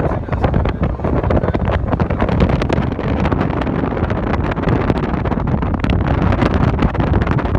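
Wind buffeting the microphone of a phone held by the side window of a moving car, with irregular crackling gusts over the steady low rumble of the car on the road.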